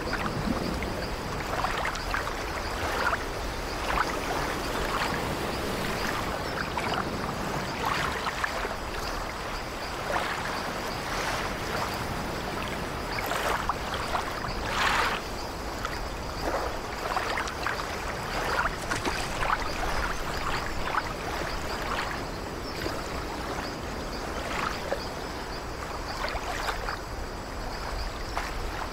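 Ocean surf: a steady rush of water with frequent irregular splashes of breaking waves.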